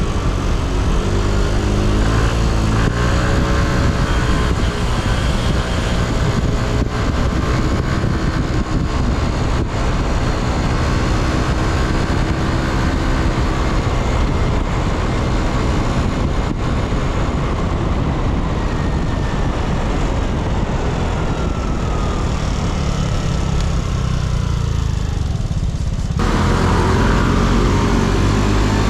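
Yamaha Cygnus X scooter's single-cylinder four-stroke engine running under way, its pitch rising and falling as the throttle changes in the first few seconds, with steady wind and road noise. The sound changes abruptly a little before the end.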